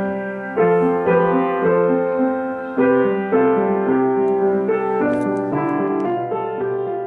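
Upright piano playing a slow, simple piece, with chords struck every second or two and left to ring.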